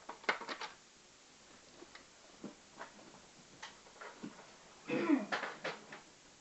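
Scattered plastic clicks and knocks of a Nerf Rampage blaster being handled, with a cluster of clicks just after the start. About five seconds in comes a brief throat-clearing sound.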